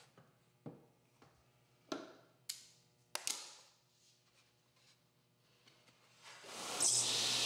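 A few sharp knocks and clicks, then about six seconds in a table saw is switched on, its motor coming up to speed and running steadily with a low hum.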